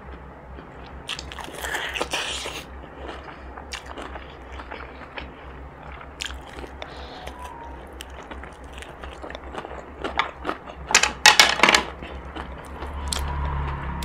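Biting into and chewing crispy breaded fried chicken: a run of crunches about two seconds in and a louder burst of crunching about ten to twelve seconds in. A steady low hum runs underneath.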